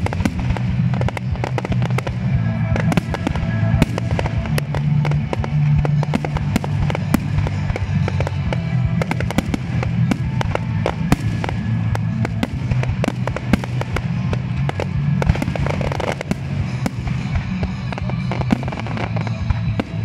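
Fireworks display: a continuous barrage of bangs and crackling from aerial shells going off one after another, with music playing underneath.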